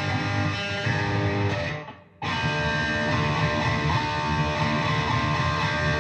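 Fuzz-distorted electric guitar playing sustained chords. The sound fades out just before two seconds in and comes back abruptly a moment later.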